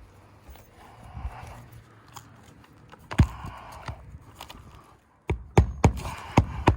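Hammer blows on a roof: one sharp strike about three seconds in, then a quick run of about five strikes near the end, with rustling and scraping of asphalt shingles in between, as a replacement shingle is nailed in.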